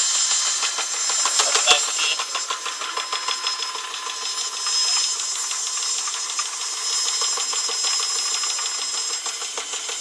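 Homemade Stirling engine run as a heat pump to cool a chamber, running steadily with a rapid, even mechanical ticking and a hiss. A sharper click near two seconds in.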